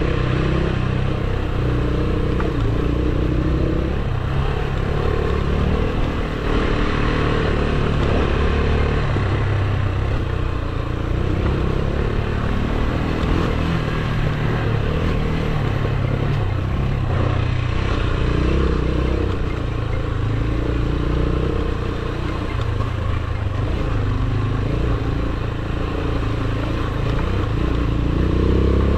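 AKT TT DS 200's single-cylinder engine running while the bike is ridden along a dirt trail, its pitch rising and falling with the throttle over a steady rushing noise.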